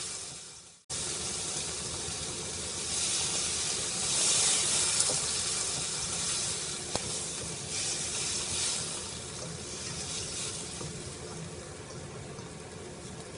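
Shrimp and celery stir-frying in a pan, a steady sizzling hiss that swells and eases and slowly dies down. It cuts out briefly just before the first second and then comes back.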